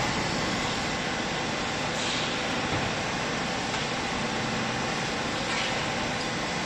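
Vertical cloth baler's hydraulic power unit, its motor and pump running steadily.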